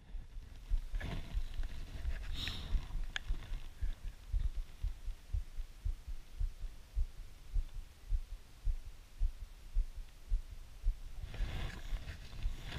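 Irregular low, muffled thumps and rumble on the microphone of a body-worn camera, about one or two a second, from the camera shifting as the angler moves. A brief rustle near the end.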